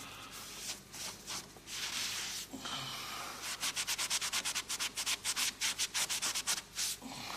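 Scrubbing strokes on the surface of old stucco marble as it is washed clean. There are a few slow, uneven strokes first, then from about halfway a fast, even back-and-forth of roughly six strokes a second.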